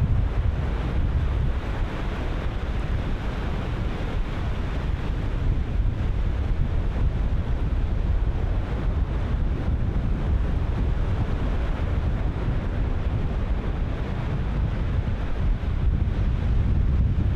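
Ocean surf breaking continuously, wave on wave, with heavy wind buffeting the microphone as a deep rumble. The sound swells and eases slightly without ever stopping.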